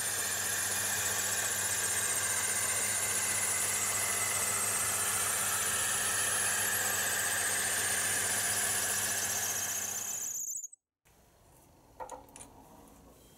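A wood lathe spins a long maple spindle blank while a 3/4-inch rounder shaves it round, giving a steady high-pitched squeal over the lathe's hum. The sound cuts off abruptly about ten and a half seconds in, leaving a few faint clicks.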